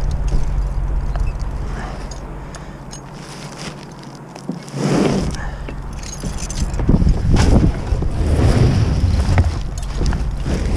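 Wind buffeting the microphone as a low rumble that eases for a couple of seconds near the middle, with scraping, rustling and knocks from a bundle of shingles being slid and set down on the OSB roof sheathing.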